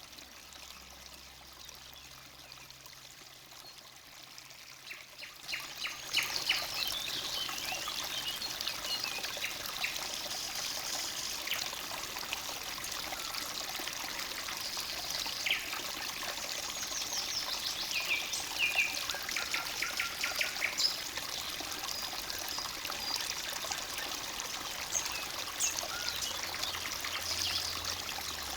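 Forest stream babbling and trickling, with songbirds chirping and singing over it. The water and birdsong swell up about five seconds in.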